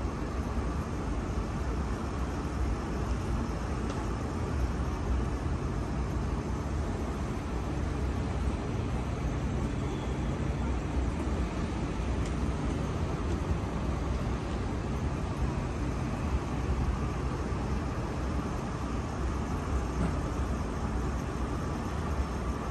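Steady outdoor city ambience: a constant low rumble with an even hiss above it, like distant traffic.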